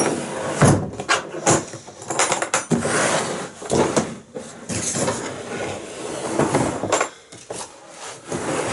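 Handling and unpacking a boxed power tool: a string of knocks, clicks and rustling as the packaging and the router are moved about.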